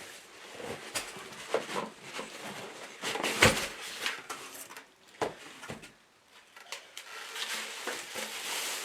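Handling noise as a bench grinder is lifted out of its box and polystyrene packing: rustling and scraping with scattered knocks, the loudest about three and a half seconds in and another a little after five seconds.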